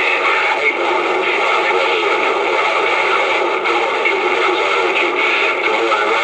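CB radio receiver putting out a steady wash of static and hash.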